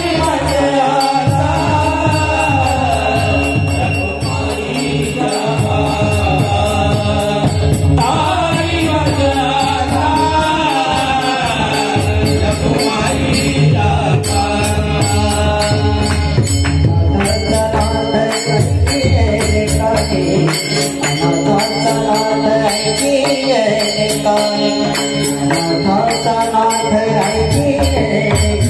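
Marathi devotional abhang singing: a solo voice holds long, ornamented lines over a steady drum beat and constant jingling of small metal cymbals.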